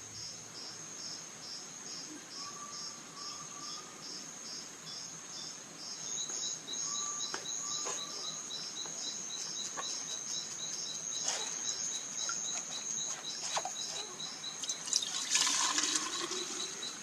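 Insects chirping steadily in several overlapping, evenly pulsed high-pitched trains, a second faster one joining about six seconds in. A few faint short notes, scattered clicks and a brief louder burst of noise sound about three quarters of the way through.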